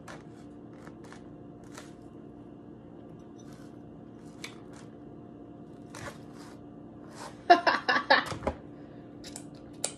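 Quiet room with a steady low hum and a few faint crisp clicks as fried lobster pieces are handled. About seven and a half seconds in, a woman's voice breaks in for about a second.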